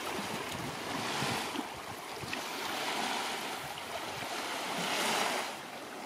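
Small waves washing onto a rocky shore, the rush swelling and fading about every two seconds, with light wind on the microphone.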